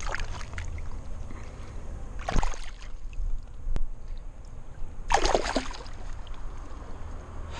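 River water splashing and sloshing in three short surges, the last and loudest about five seconds in, as a hooked smallmouth bass is let go back into the river.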